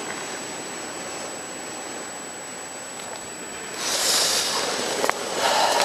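Portable single-burner gas camping stove alight, its burner giving a steady rushing hiss under a pan of water. The hiss grows louder and brighter for the last couple of seconds, and there are a few sharp knocks near the end.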